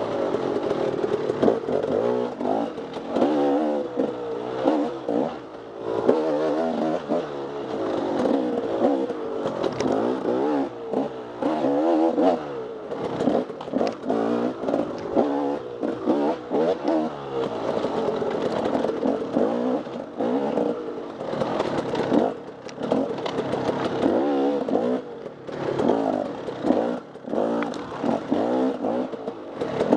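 Off-road dirt bike engine being ridden hard, its pitch rising and falling constantly as the throttle is worked on and off, with brief drops in loudness throughout.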